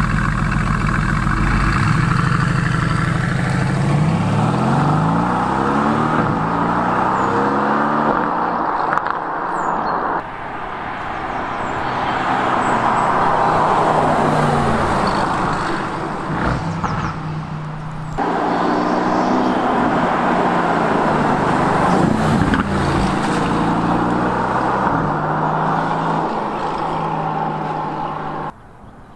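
Mercedes-AMG GT S's 4.0-litre twin-turbo V8 accelerating, its pitch rising through the revs, then running at steadier speed over tyre and road noise as the car drives past. The sound changes abruptly about ten and eighteen seconds in, and drops away suddenly near the end.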